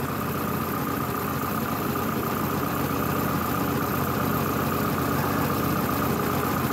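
Warm Lada four-cylinder petrol engine idling steadily and a little unevenly, the car's engine running with heavy piston-ring blow-by.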